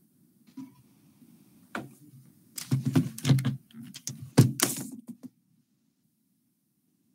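A quick run of knocks, clicks and thuds, loudest in the middle of the run, picked up by an open microphone, then cut off abruptly to dead silence about five seconds in.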